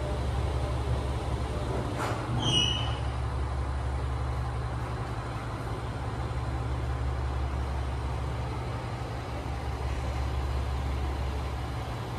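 Steady low mechanical drone, with a brief high-pitched squeal about two and a half seconds in.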